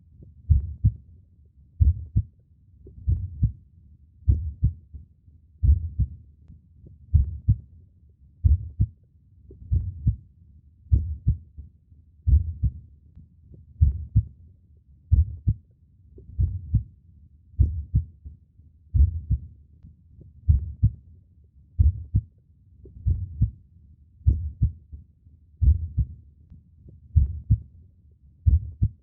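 Human heartbeat: a steady, even low double thump (lub-dub) repeating slowly, about 45 beats a minute.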